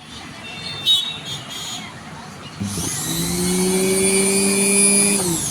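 Electric sewing machine motor, run on its foot-pedal speed control after repair. About two and a half seconds in it spins up to a steady whine, holds at speed, and winds down with a falling pitch near the end.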